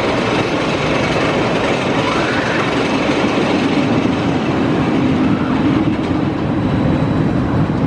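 Rocky Mountain Construction hybrid roller coaster train running along its steel track, close by. It makes a loud, steady rumble of wheels on the rail.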